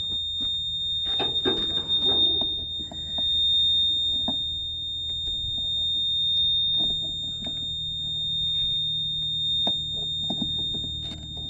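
Yanmar C30R's key-on warning buzzer sounding one steady, high-pitched tone with the key switched on and the engine not running. Scattered clicks and knocks of handling sound over it.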